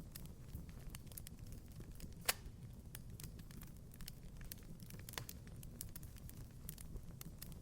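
Wood fire crackling in a fireplace: a steady low rumble of flame with scattered small crackles, and a sharper pop about two seconds in and another a few seconds later.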